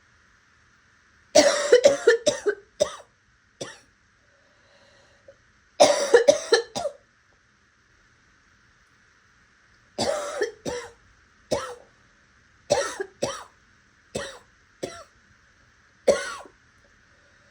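A person coughing in repeated fits of several quick coughs each, with short pauses for breath between the fits.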